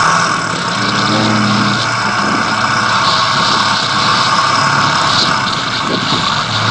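An engine running steadily under a constant rushing noise, its low pitch rising briefly about a second in.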